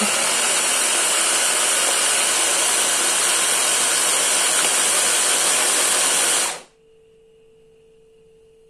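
Electric mini chopper-style blender running steadily as it blends a thick yogurt-and-spice marinade, then cutting off suddenly about six and a half seconds in.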